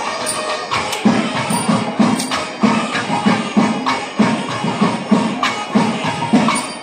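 Traditional Kerala temple percussion ensemble playing loud: drum strokes roughly twice a second over constant clashing of small hand cymbals (ilathalam).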